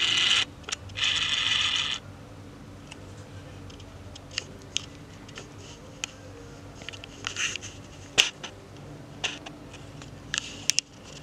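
Handling noise: rubbing and scraping against the recording device, two louder rubs in the first two seconds, then scattered light clicks and short scrapes over a faint steady hum.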